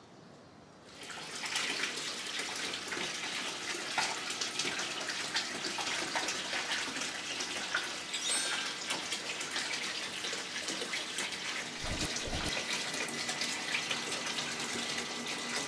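Water running from a tap into a bathtub, a steady rush that starts about a second in.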